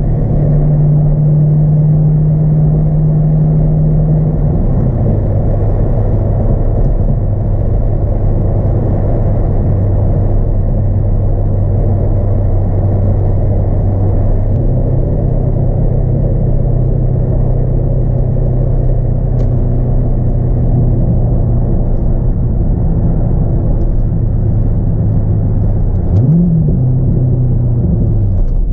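2002 C5 Corvette's LS1 V8, fitted with a cold air intake, at highway cruise, heard from inside the cabin: a steady low drone over tyre and road rumble. The engine note steps down to a lower steady pitch about four seconds in, and near the end a brief rev rises and falls back.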